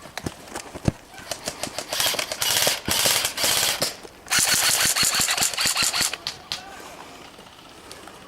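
Airsoft guns firing: a few scattered single shots, then two long rapid-fire automatic bursts, the first starting about two seconds in and the second just after four seconds, each lasting about two seconds.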